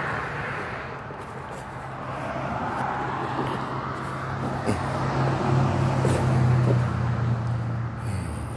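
A motor vehicle's engine running with a steady low hum, under a haze of traffic noise. It grows louder toward the middle and drops away shortly before the end.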